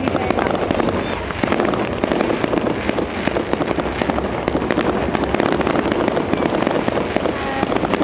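Aerial fireworks bursting in a dense, rapid run of bangs and crackles, with many shells and stars going off close together.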